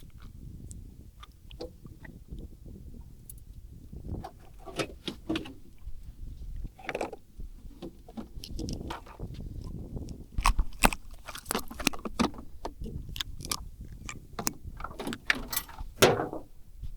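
Irregular clicks, taps and rustles from handling a small shark that has just been landed, growing busier and louder in the second half.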